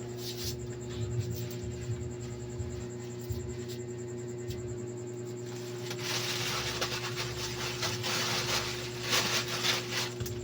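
Steady low electrical hum, joined about six seconds in by crackling, rustling handling noise with scattered clicks.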